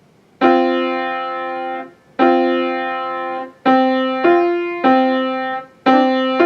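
Piano played loudly (forte): two long held notes, then shorter notes in an even, repeating beat.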